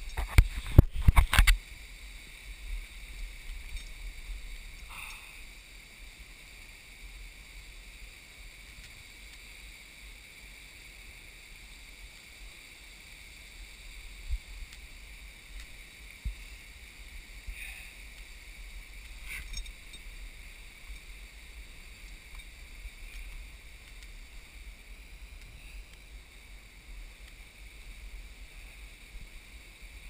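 Handling noise on a body-worn GoPro during a boulder scramble: a quick cluster of loud knocks and scrapes in the first second and a half, then a faint low rumble with an occasional small knock.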